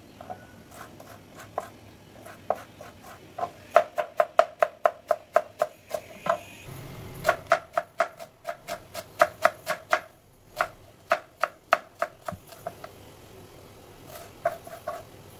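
Kitchen knife dicing a red onion on a plastic cutting board. The blade knocks sharply on the board in quick runs of about four chops a second, broken by short pauses.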